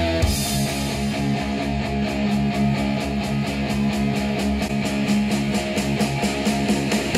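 Rock music with electric guitar and a steady beat, played through a pair of 8-inch studio monitors and picked up by microphones in the room.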